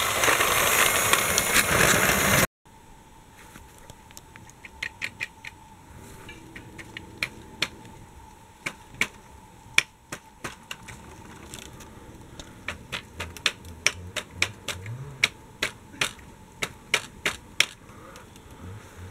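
Battery-powered Dickie Toys train running: a loud steady noise close by that cuts off about two and a half seconds in. After it come irregular sharp clicks and ticks over a faint steady whine as the toy train runs along its wooden-plank track.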